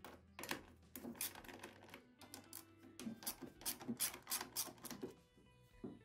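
Irregular sharp clicking and clattering of a hand tool working the bolts of a Honda mower engine's air filter housing, in quick clusters that die away about five seconds in, over faint background music.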